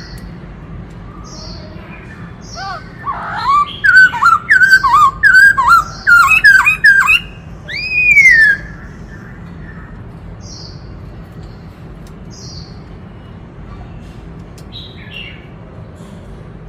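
Black-throated laughingthrush singing: a loud run of quick looping whistled notes lasting about five seconds, ending in a long falling whistle. Short high chirps repeat about once a second throughout.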